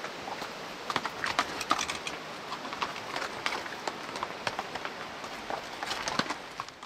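Pack horses walking on a rocky trail, with irregular hoof clops and knocks on stone, over the steady rush of a creek.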